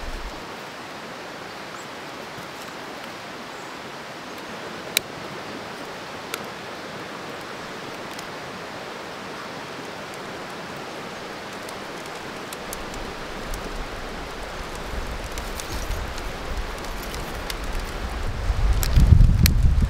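Steady rushing of a creek running past the campsite, with two faint clicks about five and six seconds in. A low rumble of wind on the microphone builds over the last few seconds.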